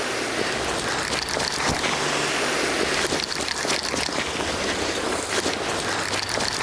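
Sea waves washing and splashing over shoreline rocks, a steady rushing hiss broken by irregular splashes.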